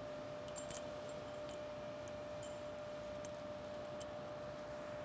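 Faint, scattered metallic clinks of bolts and clamp hardware being handled as a sweeper paddle is fitted onto a reel tube, heard over a steady background hum.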